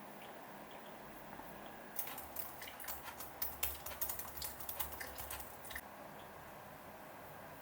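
Faint, quiet room with a run of light, irregular clicks and taps from about two seconds in until about six seconds in.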